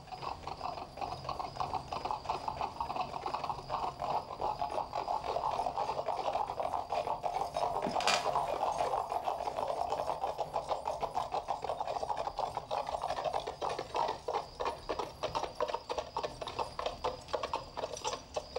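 Hooves of several horses clattering at a fast pace, a dense, even run of knocks, with one sharp crack about eight seconds in.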